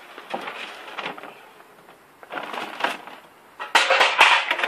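Crinkling and rustling of packaging being handled, in three noisy bursts, the last and loudest with sharp cracks near the end.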